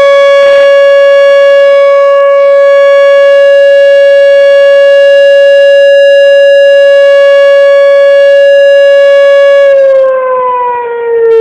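Whelen Vortex R-4 electronic outdoor warning siren sounding its steady alert tone: one loud, held pitch with strong overtones. Near the end the pitch begins to slide down and the level dips briefly.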